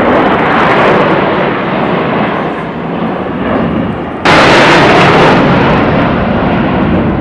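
Jet aircraft flying over, a loud, rough engine noise that jumps suddenly louder and brighter about four seconds in.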